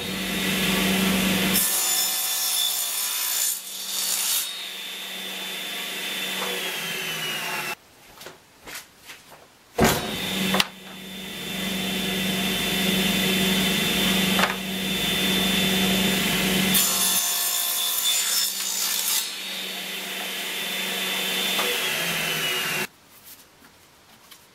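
Table saw running and cutting mitres through old hardwood fence-post timber on a crosscut sled, in two separate runs. Near the end of each run the saw's high whine falls in pitch as the blade winds down.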